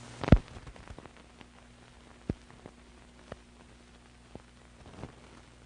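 Surface noise of an old film soundtrack: steady hiss and a low hum, broken by scattered pops and clicks, the loudest about a quarter second in.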